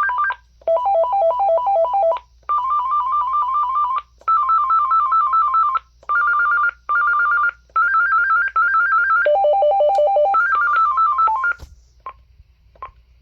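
AT&T 5.8 GHz cordless phone base playing through its ringer melodies one after another: about eight short electronic warbling trills, each a different two-tone pattern, separated by brief pauses. Two short key beeps follow near the end.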